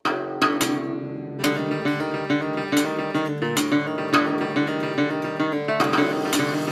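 A ca. 1930 Levin acoustic guitar playing a lively piece of strummed chords and plucked notes, starting abruptly out of silence.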